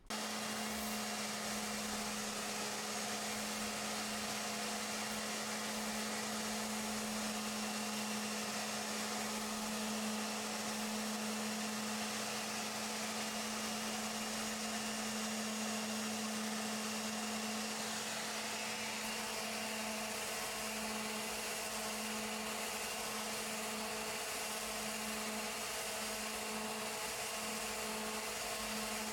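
Erbauer ERO400 125 mm orbital sander running steadily with a steady hum, sanding back a wooden handrail.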